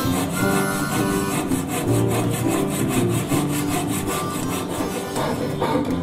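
Repeated strokes of a flat metal file scraping across a wooden carving blank, with music playing underneath.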